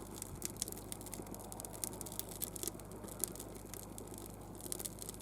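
Wood campfire crackling: irregular sharp pops and snaps of burning wood over a faint steady hiss.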